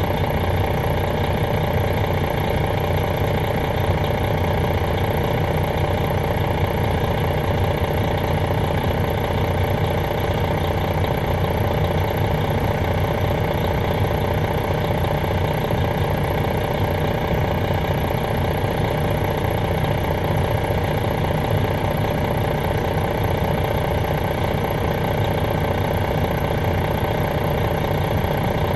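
Detroit Diesel Series 60 inline-six diesel of a 2001 MCI D4000 coach idling steadily, heard from a seat at the back of the bus, with an even low rumble that does not change.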